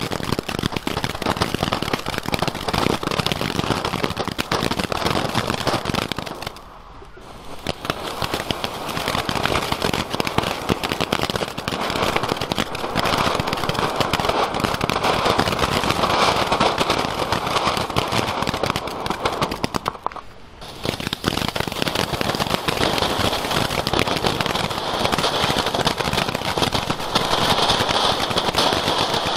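Category 1 ground fountains spraying sparks with a dense crackle. The sound drops off briefly twice, about seven and twenty seconds in, and then picks up again.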